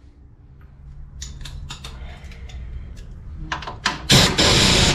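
Pneumatic impact wrench snugging a front suspension bolt: after a few light clicks, it fires a short burst and then a loud hammering burst of under a second, about four seconds in.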